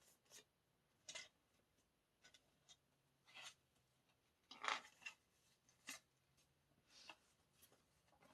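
Quiet, scattered rustling and handling of a music album's printed inserts and packaging as they are flipped through, the loudest rustle about four and a half seconds in.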